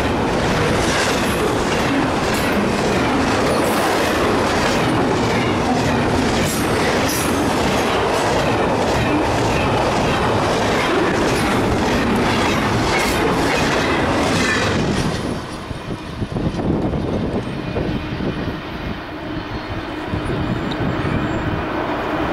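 Double-stack intermodal container train passing close at speed: a steady rush of wheels on rail with rapid clicking of wheels over rail joints. About fifteen seconds in it drops to a quieter, duller, more distant rumble.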